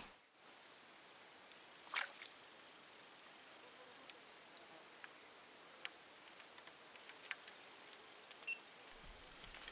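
Steady high-pitched drone of an insect chorus, with one light click about two seconds in.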